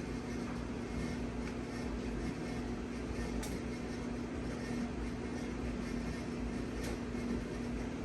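SMC Royal Flush 42-inch ceiling fan running: a steady motor hum over a low rumble, with a faint tick twice, a few seconds apart.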